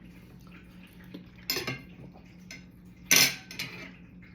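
Cutlery clinking against a plate during a meal: a few sharp clinks, a louder one about a second and a half in and the loudest just after three seconds.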